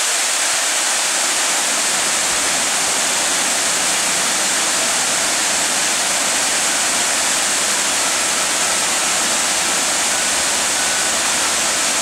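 Wide, low waterfall spilling in many strands over dark stepped rock into a pool: a steady, loud rush of falling water.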